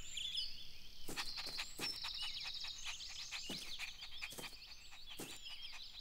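Birdsong ambience: many quick high chirps and a fast trill, with about five brief sharp sounds spaced through it.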